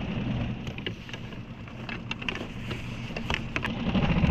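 Small boat's outboard motor running steadily with a low hum, picking up and growing louder near the end. A few light clicks and knocks sound over it in the middle.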